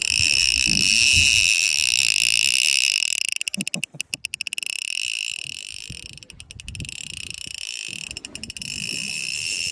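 Conventional saltwater reel's drag buzzing steadily as line is pulled off the spool, the sign of a fish running with the bait. About three seconds in it drops and breaks into short runs of rapid clicking.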